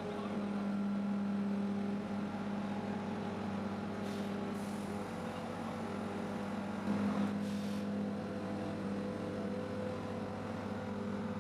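Heavy machine's diesel engine running steadily, a constant low hum with a fixed pitch and a slight swell about seven seconds in.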